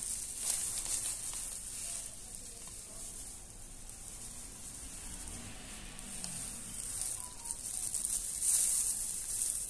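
Dry wild rue (Peganum harmala) seeds rustling and trickling as a plastic-gloved hand scoops them up and lets them pour back into a plastic sack, with crinkling of the glove and sack. A steady hissing rustle, louder at the start and again near the end.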